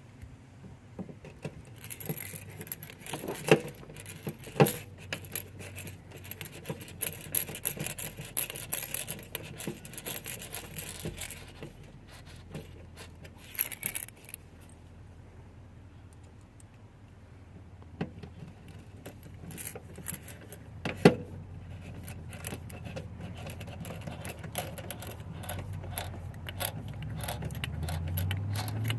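Small metal tools and door parts being handled: scattered clicks, light metallic jangling and scraping, and a few sharp knocks. A low rumble builds near the end.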